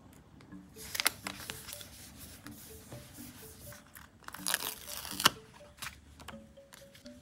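Paper and sticker sheets being handled in diary decorating: a crackly rustle about a second in, then a louder tearing, crinkling rustle between about four and a half and five seconds in.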